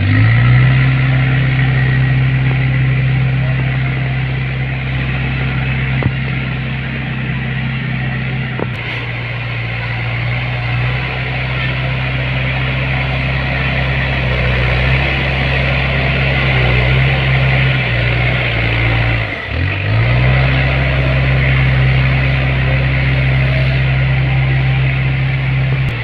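Heavy diesel engine running steadily at working revs. About three-quarters of the way through its pitch drops sharply for a moment and comes back up, as if briefly pulled down under load.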